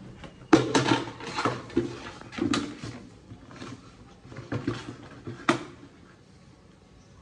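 Plastic bucket clattering and scraping on a wet tiled floor as a golden retriever carries it in its mouth and knocks it down. The knocks are irregular, loudest in the first few seconds, and die away after about six seconds.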